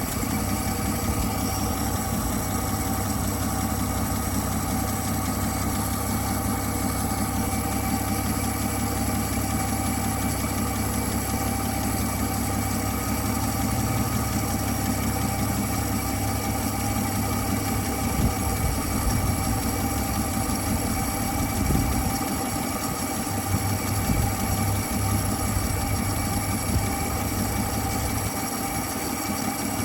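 1959 Dodge Coronet engine idling steadily on its own, the sign that fuel is reaching the carburetor again once the needle valve is sorted.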